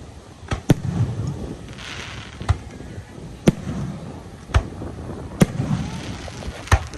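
Fireworks going off: about seven sharp bangs at irregular gaps of roughly a second, with a brief crackling hiss about two seconds in.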